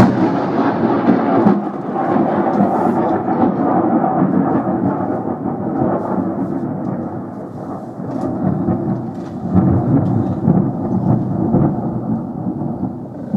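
Thunder: a sudden loud crack, then a long rolling rumble that eases and swells again about ten seconds in.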